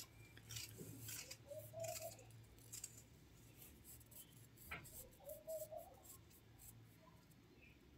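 Wooden hand churner (rai) spun back and forth between the palms in a steel bowl, whisking buttermilk and gram flour: faint, irregular swishing and clicking of the stick against the bowl.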